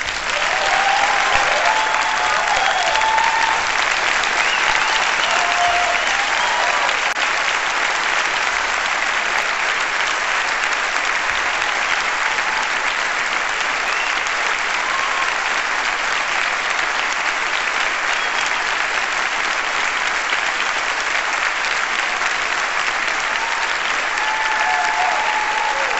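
Large audience clapping, starting abruptly and holding steady throughout, with a few voices cheering in the first few seconds and again near the end.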